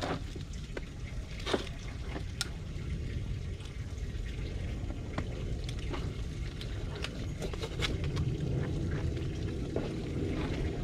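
A fillet knife working through a large fish on a cleaning table: scattered wet clicks and taps of the blade and the fish being handled, over a steady low rumble.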